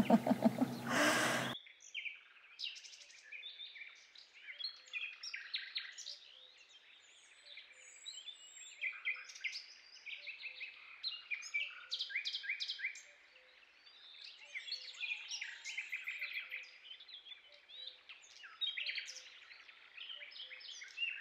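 A woman laughs briefly at the start. Then songbirds sing: clusters of high chirps and trills, phrase after phrase, with short pauses between.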